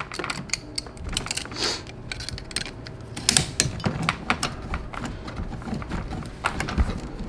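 Irregular clicks and scrapes of pliers squeezing a hose clamp and working it along the joint of a plastic dishwasher drain hose, with a few louder clicks about halfway through.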